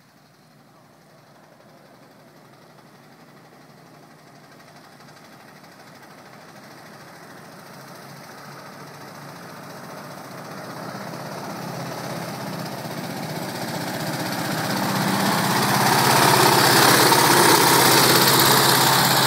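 1905 Orient Buckboard's rear-mounted air-cooled engine running as the car approaches and passes close by, growing steadily louder and loudest near the end.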